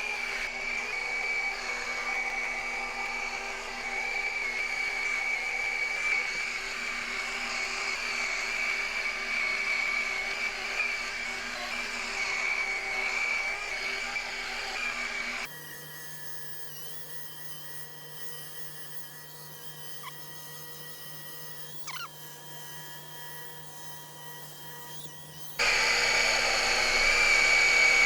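Electric rotary glass polisher running with a steady high whine while working a scratch out of a glass pane. About halfway through it gives way to a quieter steady hum, and near the end the loud whine comes back.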